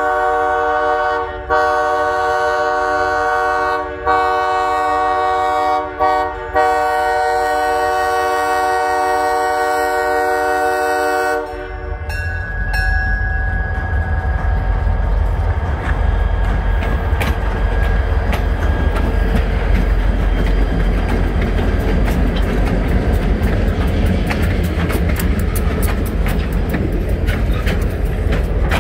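Diesel freight locomotive's multi-tone horn sounding the grade-crossing signal, long, long, short, long, with the last long blast cutting off about eleven seconds in as the locomotive reaches the crossing. The locomotive's diesel engine then rumbles past, followed by freight cars rolling by with rapid clicking of wheels over the rails.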